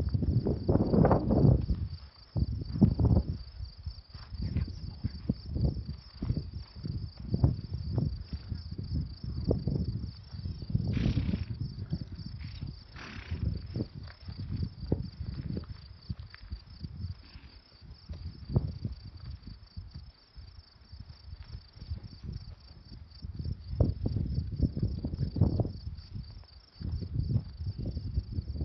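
Steady chorus of crickets trilling, a high, fast-pulsing buzz, under irregular low rumbling gusts of wind on the microphone, which are the loudest sound.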